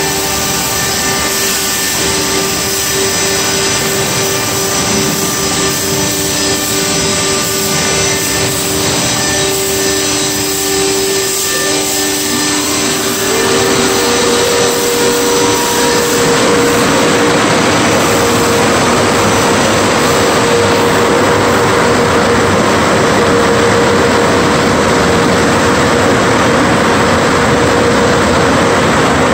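Automated tunnel car wash equipment running loud and steady: motors and pumps hum under a hiss of water spray. About halfway through a new, higher whine comes in, and the spray hiss soon grows louder as the vehicle passes into the rinse arches.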